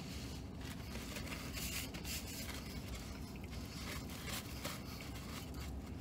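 Faint rustling and crinkling of a paper napkin being picked up and unfolded, in scattered soft crackles.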